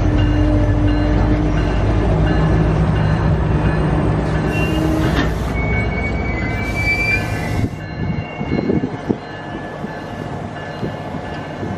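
Passenger train's bilevel dome railcars rolling slowly past: a steady rumble of wheels on rail with faint squealing tones. Two short hisses come about halfway through, and the rumble drops off about eight seconds in.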